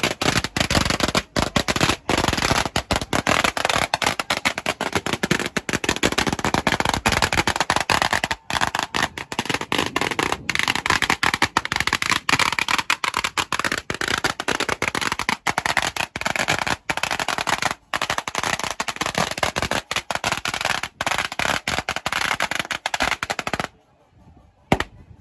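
A long string of firecrackers going off in a rapid, continuous crackle of sharp bangs, then cutting off suddenly near the end.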